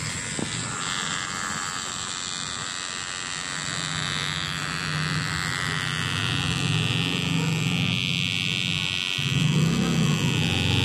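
Small electric motor spinning a plastic propeller: a steady buzzing whir. It breaks off briefly near the end and comes back louder.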